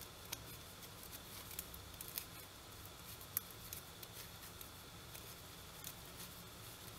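Faint, irregular small clicks and rubbing of knitting needles and yarn as stitches are knitted, over a low steady hum.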